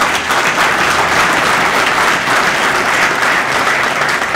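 Audience applauding: many people clapping together in a steady, dense patter that eases off near the end.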